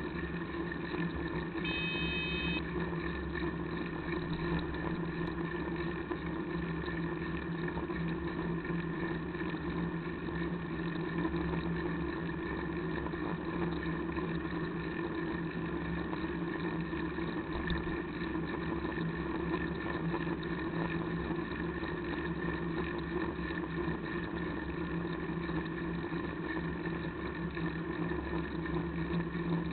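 Steady road and traffic noise heard from a camera on a moving bicycle, passing a queue of idling cars, with a constant unchanging hum under it. A short, high, ringing tone sounds once about two seconds in.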